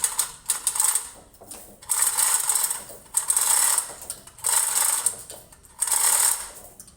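Rapid metallic ratcheting clicks from a hand-worked ratchet mechanism. They come in repeated bursts of under a second each, about five strokes with short pauses between them.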